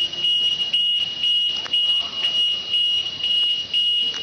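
Electronic alarm beeping: one high-pitched beep repeating about twice a second, without a break.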